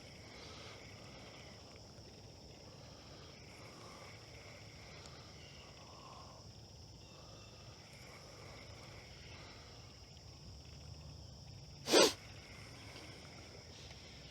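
A steady, high-pitched chorus of crickets or similar insects. About twelve seconds in, one short, sharp, loud noise cuts across it.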